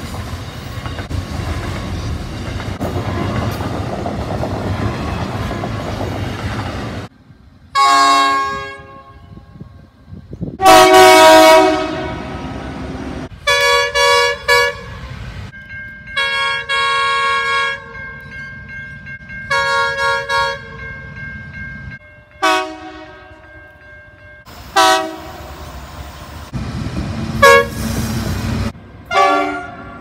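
Freight train wagons rolling past with a steady rumble. After a sudden cut comes a run of diesel locomotive horn blasts from several trains, each a chord of several notes. Some blasts are long and some come as quick short toots, and the loudest is about eleven seconds in.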